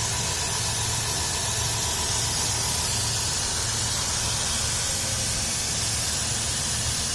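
Dodge Grand Caravan's 3.3-litre V6 idling steadily, with a steady hiss over it. It runs smooth, with no knocks.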